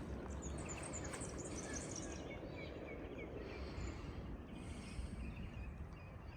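Small birds chirping and twittering in quick short calls, busiest in the first few seconds, over a steady low background rumble.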